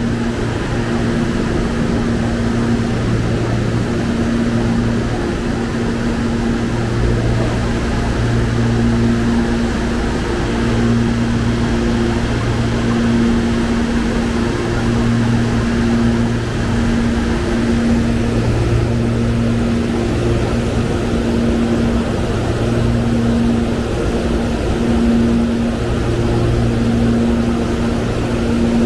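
Electric commuter train at a station platform, humming steadily, with a low pitched drone that keeps breaking off and coming back every second or so.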